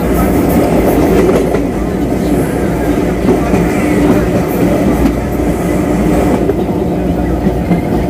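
CPTM Série 2000 electric multiple unit humming steadily while standing, its traction and onboard electrical equipment giving a low, even drone with a few faint clicks.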